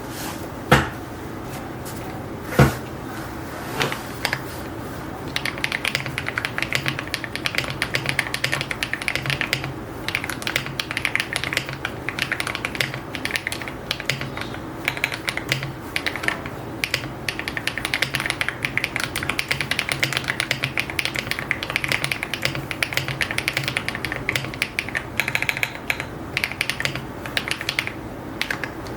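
Typing on a 75% mechanical keyboard with pre-lubed HMX Latte linear switches and copper metal keycaps. A few single keystrokes come first, then steady, fast typing starts about five seconds in and runs with only short pauses.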